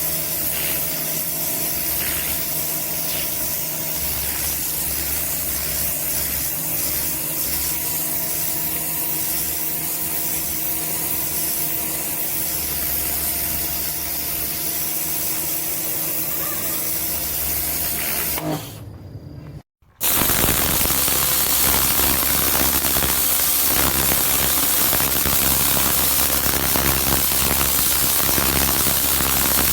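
Karcher K 2 electric pressure washer running, its motor-driven pump humming steadily under the hiss of the water spray. It breaks off briefly about two-thirds of the way through, then carries on slightly louder.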